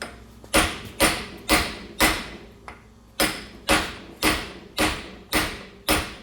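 Hammer blows on a seized 1940s Wilton bullet vise, driving its stuck screw assembly out. There are ten loud strikes at about two a second, with a short pause after the fourth, and each blow has a brief metallic ring.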